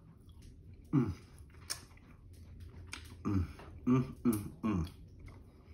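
A man chewing a mouthful of white chocolate, with a few short hums and small mouth clicks: one hum about a second in, then several close together in the second half.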